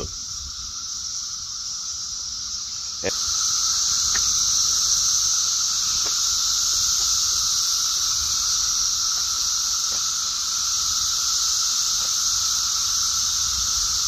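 A dense chorus of cicadas making a steady, high-pitched drone with a second, lower steady tone beneath it. It gets louder about three seconds in.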